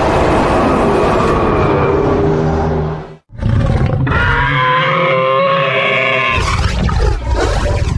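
Kaiju monster roar sound effects played one after another. A rough, grating roar stops abruptly about three seconds in. It is followed by a pitched, bellowing roar, then a third roar whose pitch sweeps up and down near the end.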